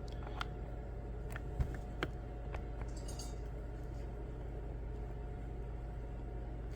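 Small metal clicks and clinks as a brand-new impact socket is worked onto the square drive of a 3/8-inch impact driver, a tight fit. There are several clicks and a short rattle in the first three seconds, then only a steady low hum.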